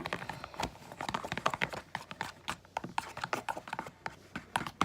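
Shaving cream being added to glue in a container: a quick, irregular run of small clicks and squelches.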